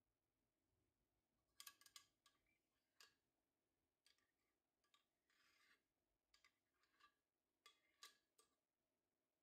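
Faint clinks and scrapes of a metal spoon scraping thick blended salsa out of a glass blender jar into a glass bowl. The sounds come as scattered light taps starting about one and a half seconds in, with a longer scrape in the middle.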